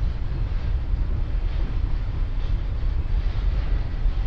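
Freight train cars rolling past: a steady low rumble of steel wheels on the rails.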